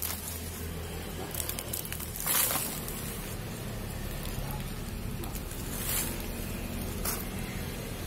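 Soil and roots of a bonsai root ball scraping and rustling as it is handled and set down on a pot, in a few short bursts, the loudest about two and a half seconds in, over a steady low hum.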